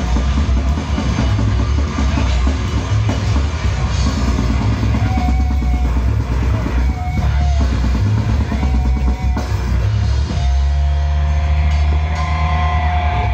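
Heavy metal band playing live through a PA: pounding drum kit with bass drum under distorted guitars. About ten seconds in, the drumming gives way to a held, ringing chord with sustained higher tones over it.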